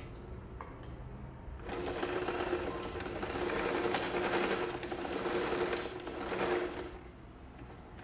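Electric sewing machine stitching back and forth through canvas and webbing to lock the seam. It starts about two seconds in and stops near the end.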